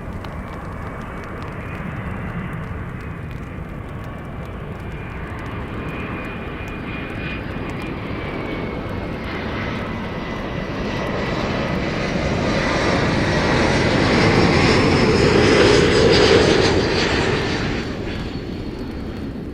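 An airliner's engines passing close by, a steady whine that slowly falls in pitch over a deep rumble. It grows louder to a peak about three-quarters of the way through, then fades quickly.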